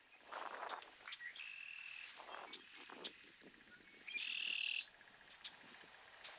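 Several wild birds calling: short chirps and rougher calls, a steady high whistled note about a second and a half in, and a louder buzzy trill about four seconds in.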